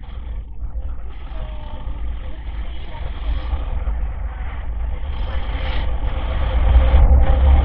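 Motorcycle riding at road speed: heavy wind rumble on the microphone over engine and road noise, growing louder toward the end, where a steady engine tone comes up.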